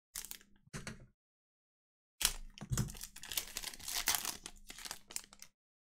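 Foil wrapper of a Panini Elite football card pack crinkling and tearing as the pack is ripped open: two short rustles, then about three seconds of continuous tearing and crinkling.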